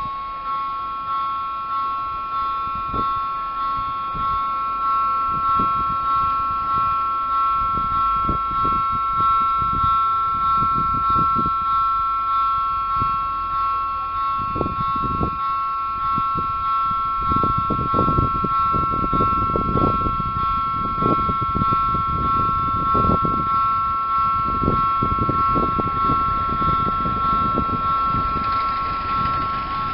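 Level crossing's electronic warning bell ringing with the barriers down: a two-tone electronic ding repeating about once a second. Irregular low rumbling grows beneath it in the second half.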